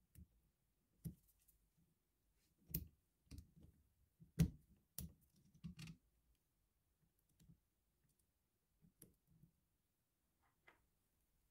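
Scattered small metal clicks and taps as a replacement coil spring is worked onto the steel bit-holder collet of a DeWalt impact driver with a flat screwdriver. The loudest click comes about four and a half seconds in, and the clicks thin out in the second half.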